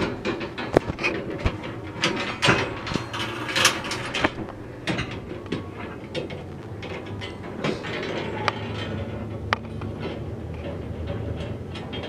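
Steel rebar stirrups, bent from 3/8-inch bar, clinking and scraping against the vertical reinforcing bars of a column cage as they are handled and slid into place: a string of irregular metallic clicks and knocks, busiest in the first half, with a few sharp clicks later on.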